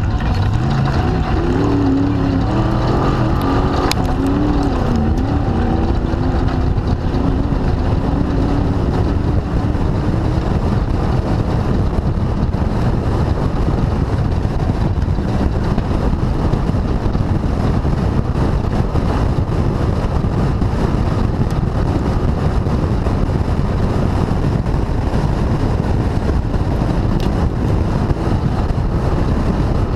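Class 2000 off-road race car driven hard, heard from its onboard camera. The engine's pitch rises and falls over the first ten seconds, then it is buried in a steady, loud rush of noise.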